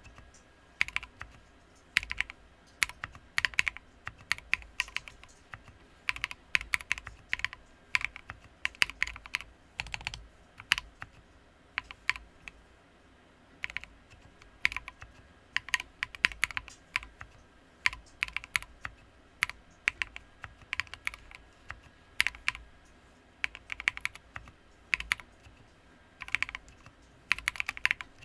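Typing on a Sequence mechanical keyboard with lubed Poseidon switches and MT3 keycaps: irregular runs of sharp key clacks with short pauses between runs.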